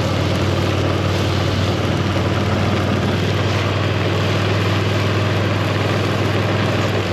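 KTM 1290 Super Duke GT's 1301 cc V-twin engine running at a steady pitch, neither revving up nor dropping, with a steady hiss over it.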